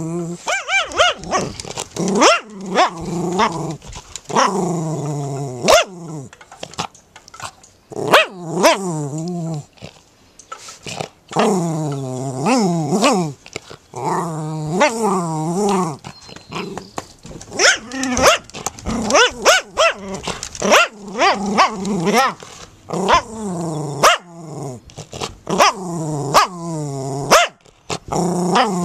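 Jack Russell terrier barking and growling with a tennis ball held in its mouth, in repeated bouts with short pauses between them.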